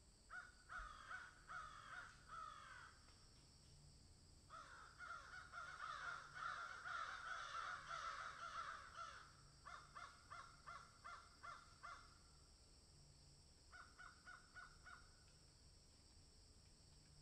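Crows cawing in runs of quick repeated caws. Several birds overlap in a dense chorus through the middle, with shorter runs before and after. A steady high hiss lies underneath.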